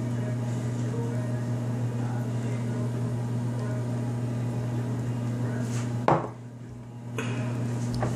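A steady low hum, broken by a sharp click about six seconds in, after which the hum drops out for about a second and then comes back.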